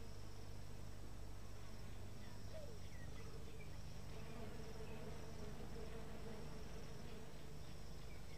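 Steady buzzing hum of a dense swarm of lake flies, with a higher, pulsing insect trill above it.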